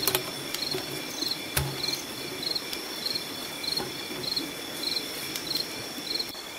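Night insects, crickets among them: a steady high trill with a short chirp repeating about twice a second. A couple of sharp clicks come from handling, one at the start and one about a second and a half in.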